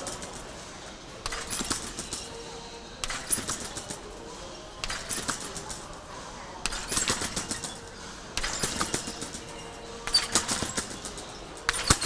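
Competition trampoline being bounced on: each landing brings a short burst of rattling and clattering from the springs and frame, about every two seconds, seven times over. The bursts grow louder near the end as the gymnast performs somersaults.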